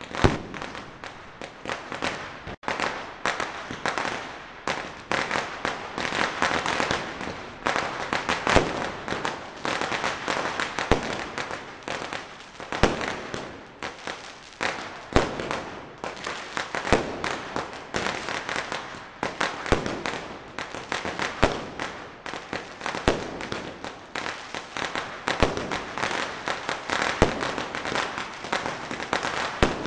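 Firecrackers going off in a dense, continuous stream of pops and crackles, with louder bangs standing out every second or two.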